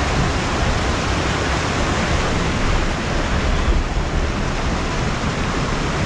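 Waterfall: falling water rushing in a steady, dense hiss with a deep rumble underneath, unchanging throughout.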